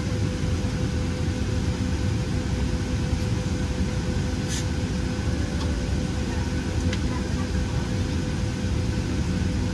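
Cabin noise of a Boeing 737-700 taxiing: a steady low rumble from the engines at idle, with a constant hum above it. Two faint clicks come about halfway through and again a couple of seconds later.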